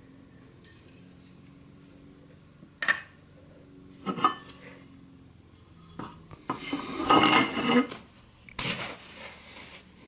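Steel and plastic toy truck parts handled and set down on a countertop: single clinks about three and four seconds in, a longer run of clattering and scraping from about six and a half to eight seconds, then one more knock near nine seconds.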